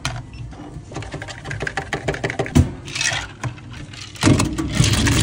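Plastic cups and a lid clattering and tapping on a wooden counter. A little over four seconds in, a motor-driven machine starts and runs loud and steady.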